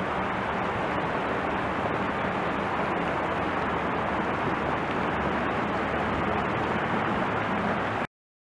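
Floodwater rushing down a wadi in spate, a steady rushing noise that cuts off abruptly about eight seconds in.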